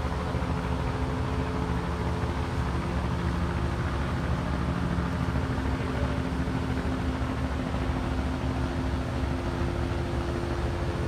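Steady engine drone under a constant rushing noise, its pitch shifting slightly about halfway through.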